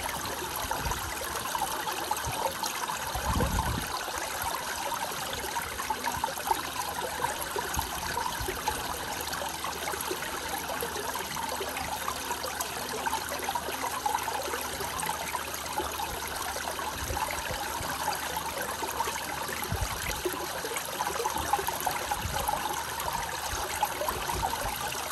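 Water trickling steadily in a thin sheet over the edge of a block, splashing onto pebbles and a plastic drain grate. A brief low thump about three seconds in.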